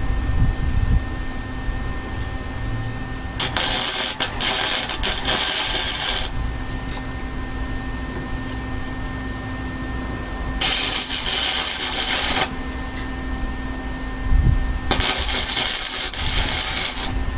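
Wire-feed MIG welder arc crackling in three bursts of about two to three seconds each, with a steady low hum between them.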